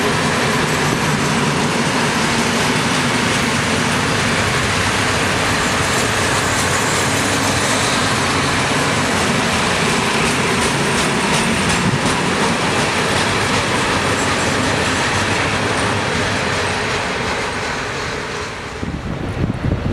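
Loaded Eaos open freight wagons rolling past at close range, a steady rumble with clicks and knocks from the wheels. The noise fades and drops away near the end as the last wagon passes.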